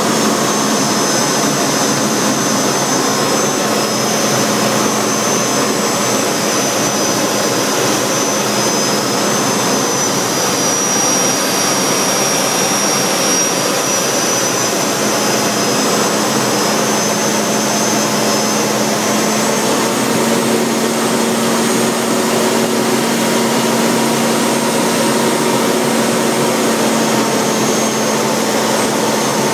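BAC Strikemaster's Rolls-Royce Viper turbojet at high power during take-off and climb-out, heard inside the cockpit: a steady, loud rushing noise with a high whine that dips slightly in pitch around the middle.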